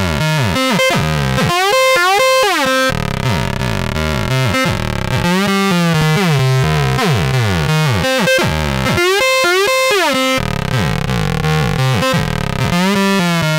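FL Studio's 3xOsc synthesizer playing a squeaky, whiny 303-style sawtooth sequence. The notes slide up and down into one another in a repeating pattern.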